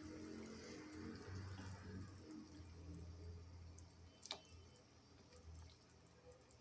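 Very faint sound of fish curry boiling in the pan, with a single soft plop about four seconds in as a piece of fish is dropped into it.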